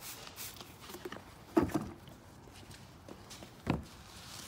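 Trigger spray bottle spritzing cleaner onto a plastic grille in a couple of short hisses, followed by two louder, dull knocks about two seconds apart.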